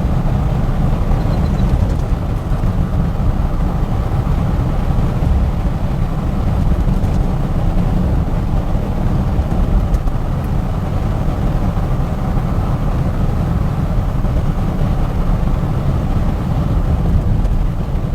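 1959 Cadillac with a 390 V8 being driven, a steady low rumble of engine and road noise.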